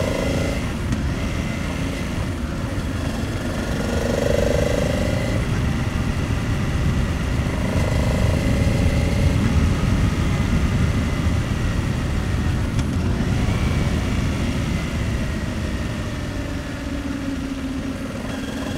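Honda Transalp 700 V-twin motorcycle engine running while riding, with a dense rush of wind and road noise on the onboard microphone. The engine note swells a few times, as when the rider opens the throttle between bends.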